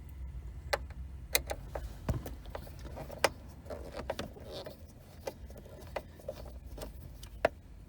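Scattered clicks and light knocks, about nine spread irregularly, from hands working at a car's shifter and plastic centre console trim to take them off, over a low steady rumble.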